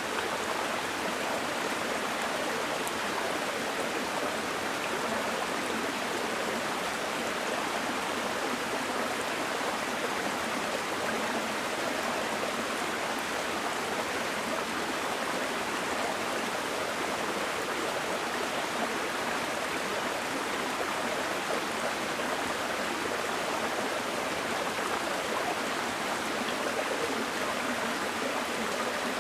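Small mountain stream flowing and splashing over rocks, a steady rushing with no breaks.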